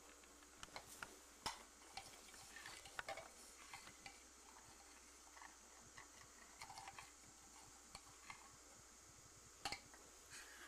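Near silence broken by faint, scattered light clicks and taps of small toy dishes and spoons being handled in pretend cooking and eating, with a few quick taps close together near the end.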